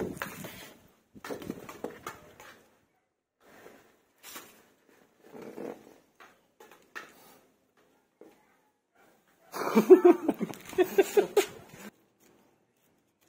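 Fresh banana leaves rustling as they are handled and laid flat, in short scattered bursts. About ten seconds in comes the loudest sound, a quick run of loud calls lasting about two seconds, like an animal's.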